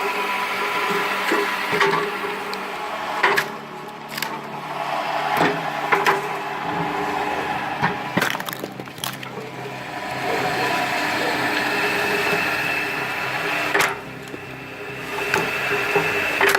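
Powered firewood splitter running with a steady hum, its moving blade driving through logs: wood cracks and splits sharply about eight to ten times at uneven intervals.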